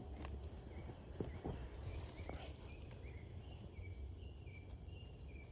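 Frogs calling after rain: short high chirps, roughly three a second, starting about two seconds in. Underneath is a low steady rumble with a few sharp clicks in the first second or so.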